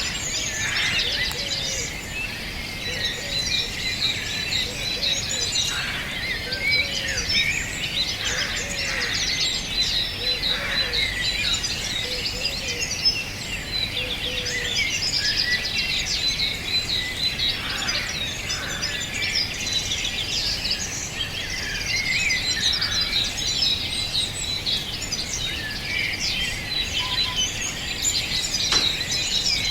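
Dense chorus of many songbirds singing and chirping at once, with overlapping trills and short calls, over a steady low outdoor background hiss.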